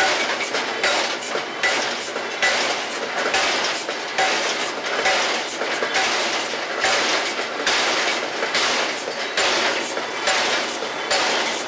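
Rhythmic mechanical clanking, a sharp metallic strike a little faster than once a second over a steady machine din.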